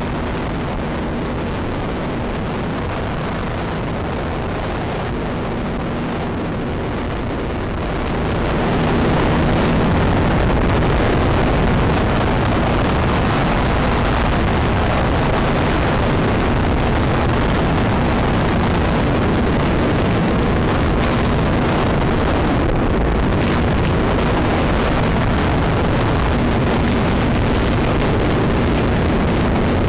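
A motor running steadily with heavy wind noise, getting louder about eight seconds in and then holding.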